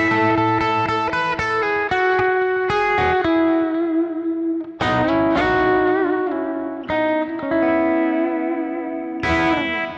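Clean electric guitar played through a Kemper Profiler on a profile of a small Princeton amp, with reverb and stacked delays: picked notes ring into each other, and new chords are struck about five, seven and nine seconds in, each ringing out, with a wavering note around six seconds.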